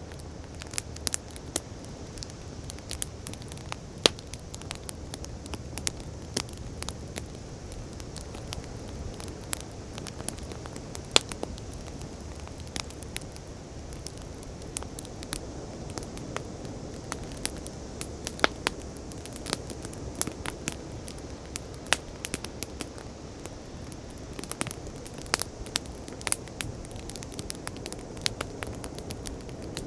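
Wood fire crackling, with sharp pops scattered irregularly, over a steady low wash of sea waves.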